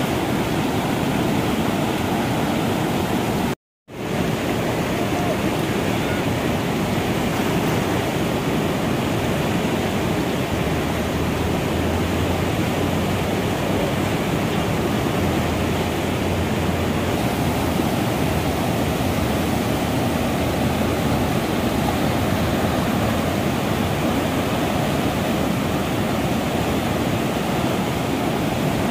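Whitewater rapids rushing steadily: a loud, even wash of churning water. The sound cuts out completely for a split second about four seconds in.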